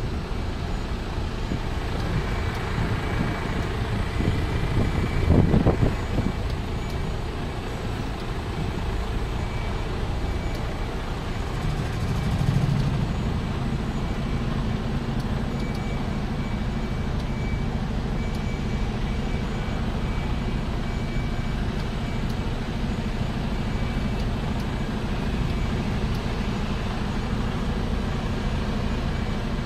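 Truck engine running steadily, with a reversing alarm beeping at times. There is a brief louder surge about five seconds in and a smaller swell around twelve seconds.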